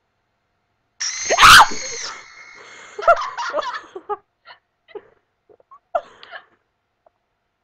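Screamer prank video's jump-scare: a sudden, very loud shrieking scream about a second in, lasting about a second. It is followed by scattered short bursts of laughter.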